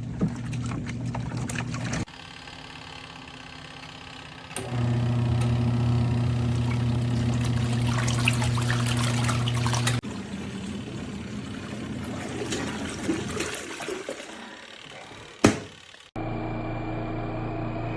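Water pouring and splashing in the tub of a portable twin-tub washing machine, over a steady low hum, in several short stretches that change abruptly. A single sharp click comes near the end.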